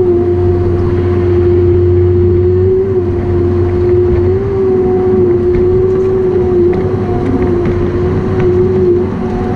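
Forestry machine's diesel engine running steadily under load, with a constant hydraulic whine over it; the low engine hum eases a little about three seconds in.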